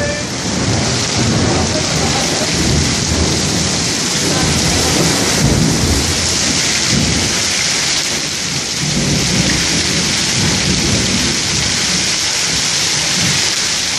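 Heavy rain and hail coming down on rooftops in a steady dense hiss, with low rumbling thunder swelling and fading underneath.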